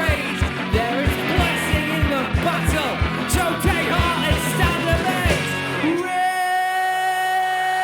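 Live rock band playing, with drums, bass and guitar under a strained, shouted lead vocal and the kick drum on a steady beat. About six seconds in, the drums and bass stop and a single high note is held over a thin backing.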